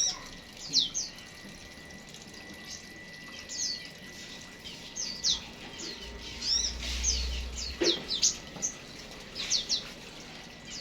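Small aviary birds chirping: short, sharp, high calls scattered throughout, some in quick pairs, with a faint low rumble a little past the middle.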